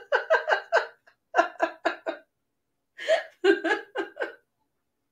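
A woman laughing hard in three runs of quick 'ha-ha-ha' pulses, with short breaks between them and the last run starting about three seconds in.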